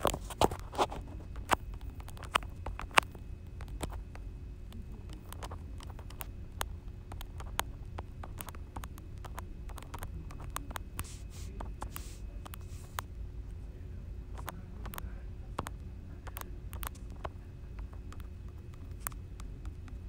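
Irregular light clicks and taps, each very brief, scattered over a steady low hum.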